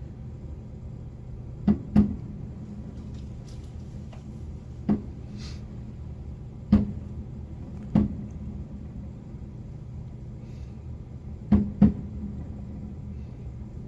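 Firework shells bursting at a distance: about seven sharp bangs at irregular spacing, two of them in quick pairs, over a steady low hum.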